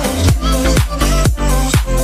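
Electronic dance music with a steady four-on-the-floor kick drum, about two beats a second, and sustained synth chords.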